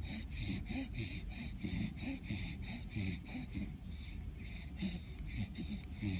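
A dog snoring, with wheezy breaths in a quick, even rhythm of about four pulses a second.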